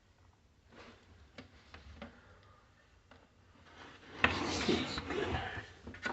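Hands handling a new coffee machine and its packaging: a few faint clicks and knocks of plastic parts, then a louder burst of handling noise about four seconds in that lasts about a second.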